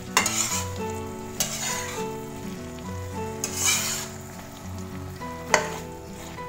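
Slotted spatula stirring and scraping potato and green bean sambal around a wok over sizzling, with several scrapes, the sharpest about five and a half seconds in. Background music with a changing melody runs underneath.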